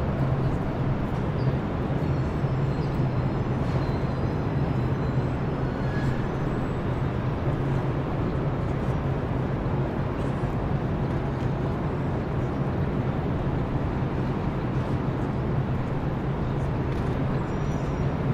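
Manhattan city din: a steady wash of traffic noise with a constant low hum underneath, and a few faint high squeals over it.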